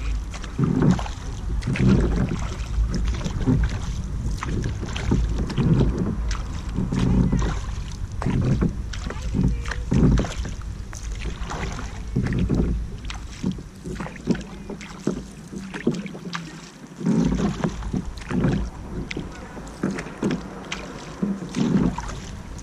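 Kayak paddle strokes, a double-bladed paddle dipping and pulling through the water on alternating sides, about one stroke every second and a half, with a short lull about two-thirds of the way through. Wind rumbles on the microphone underneath.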